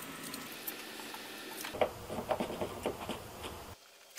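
Faint handling noise of thread-seal (PTFE/Teflon) tape being wrapped onto a threaded plumbing fitting: a scatter of small clicks and rustles starting a little under two seconds in, then cutting off abruptly near the end.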